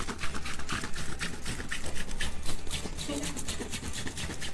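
Quick, repeated scraping strokes of a hand-held box grater as a block of topping is grated over a bowl.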